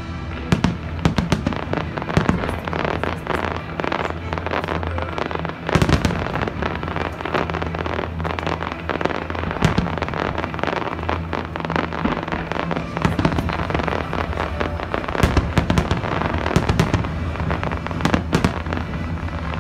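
Fireworks display: a rapid, continuous run of bangs and crackle from aerial shells, with the heaviest bursts about a third of the way in and again near the end. Music plays underneath.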